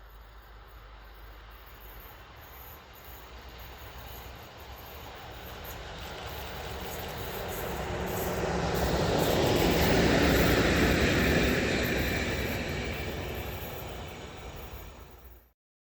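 A train passing by on the rail line: a rumble with rail noise that builds, is loudest about ten seconds in, then fades, and cuts off abruptly near the end.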